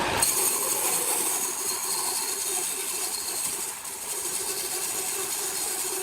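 Machinery running steadily: a constant mechanical hum with a steady mid-pitched tone and a high hiss, changing slightly just after the start and again about four seconds in.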